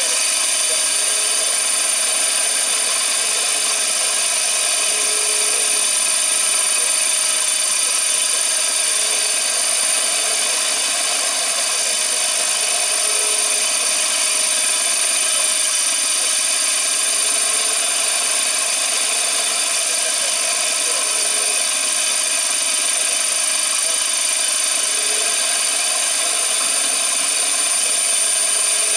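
CNC machine running steadily, with a constant high-pitched tone over its motor sound.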